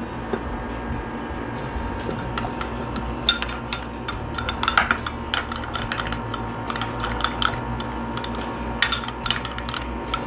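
A metal spoon clinking and scraping against a small plate while mayonnaise and tomato ketchup are stirred together, with the clinks bunched a few seconds in and again near the end, over a faint steady hum.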